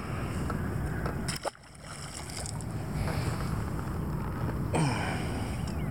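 Wind rumbling on the microphone over water lapping at the boat, with a sharp splash about a second and a half in as a largemouth bass is dropped back into the lake.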